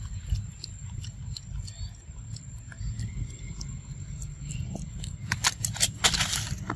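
Macaque biting and tearing crisp cabbage leaves: scattered crunches and crackles, coming thicker and louder over the last second or two, over a steady low rumble.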